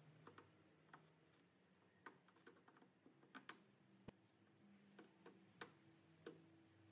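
Faint, irregular small clicks and ticks of a hand screwdriver working the screws of a speaker grille in a steel car door panel, about a dozen spread unevenly, over a faint low hum.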